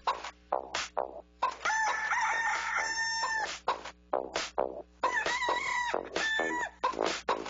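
Chicken sounds: a run of short clucks, with two longer crowing calls, one starting about a second and a half in and another about five seconds in.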